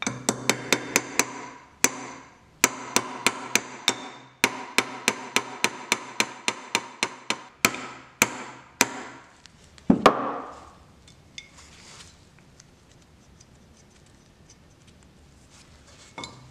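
A hammer tapping a pin into a Stanley block plane in quick runs of light blows, about four or five a second, with the metal ringing between strikes. A single heavier knock follows about ten seconds in, then only faint handling taps.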